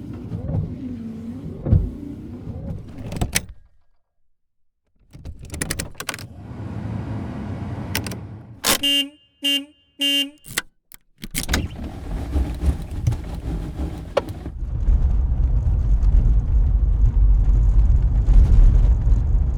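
A montage of 1986 Volvo 740 Turbo sounds. The engine runs with shifting pitch, then cabin handling noises follow with clicks and knocks. A quick series of short tones comes in the middle. Near the end a loud, steady, deep rumble of the car riding takes over.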